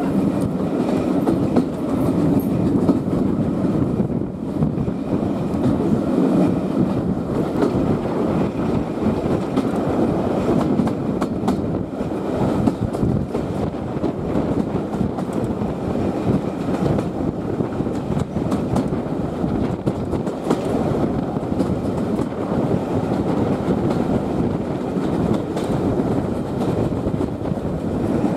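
Carriage of a steam-hauled passenger train running along the line, heard through an open carriage window: a steady rumble of wheels on the rails with many light clicks throughout.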